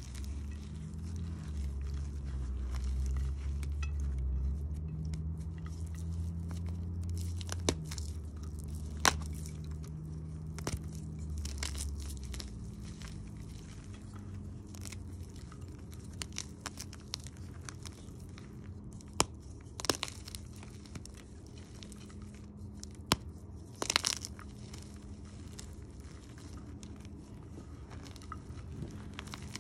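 Blocks of soap-soaked gym chalk crumbling and crunching as they are squeezed and rubbed to powder between bare hands, with a few sharp cracks as harder lumps break. A low hum sits underneath for the first twelve seconds or so.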